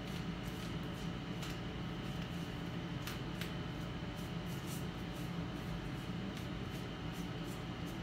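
A hand brush sweeping over the removed iMac display panel: scattered short, light swishes and ticks over a steady low hum.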